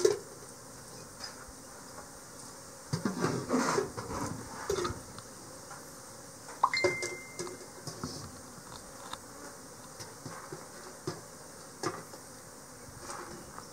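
Aluminium pots and a bowl knocking and clanking while honey is strained through cloth. There is a busy run of knocks a few seconds in and one sharp metallic clang that rings briefly about halfway through.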